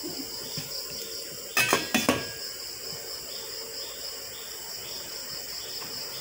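A stainless steel lid is set onto a stainless steel cooking pot, a short run of metal clanks about a second and a half in, covering the fish broth to bring it to the boil. A steady high hiss runs underneath.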